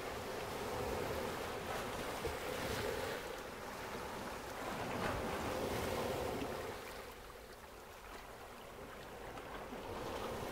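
Soft, even rushing noise with no distinct events, swelling and easing every couple of seconds like surf.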